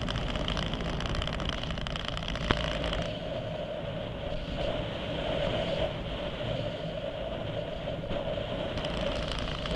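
Steady rush of air over an RC glider's onboard camera in flight, with a sharp click about two and a half seconds in; the highest hiss drops away about three seconds in.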